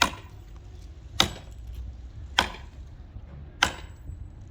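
Four sharp knocks at an even pace, about one every 1.2 seconds, over a low background rumble.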